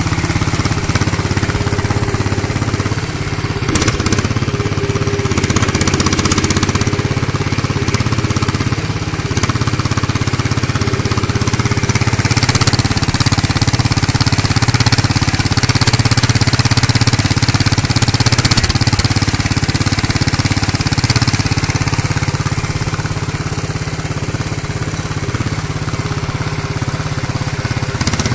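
Handmade hydraulic RC excavator model running: a steady mechanical drone from its hydraulic pump drive.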